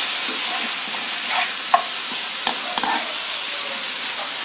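Chicken pieces sizzling in a non-stick wok with a steady hiss, still frying in the pan's heat just after the flame is switched off. A stainless steel spatula stirs them, scraping and tapping against the pan a few times.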